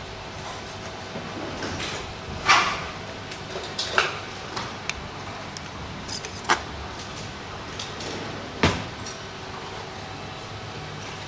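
Hard objects being handled and set down: about five separate sharp knocks and clatters, the loudest a couple of seconds in, over a steady low hum.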